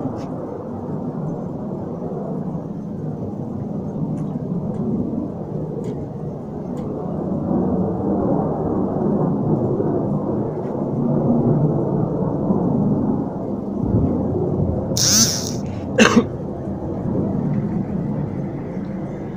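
Low, steady drone of a distant aircraft engine, swelling in level in the middle and easing toward the end. Near the end a brief rustle and a sharp knock stand out above it.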